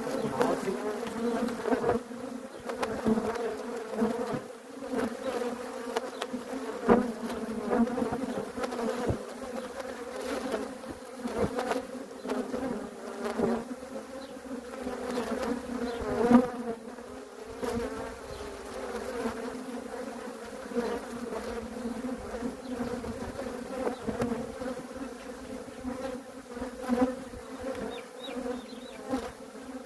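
Honeybees buzzing around an opened hive: a continuous hum with a steady pitch and overtones, swelling and fading as single bees fly close past.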